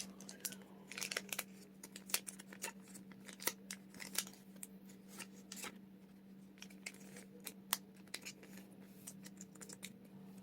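Faint handling of Pokémon trading cards and their plastic and foil packaging: many small scattered clicks and a few brief crinkles, over a steady low hum.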